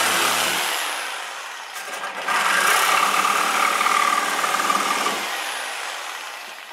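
Corded reciprocating saw (Sawzall) running in two bursts, cutting off the protruding ends of quarter-inch bolts. The first cut winds down about a second in; the second starts a little after two seconds with a steady high whine and runs down near the end.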